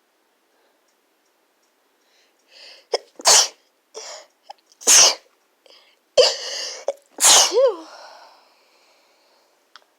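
A person's sneeze fit: three loud sneezes in quick succession starting about three seconds in, each preceded by a sharp catching inhale. The last sneeze trails off in a short falling voiced sound.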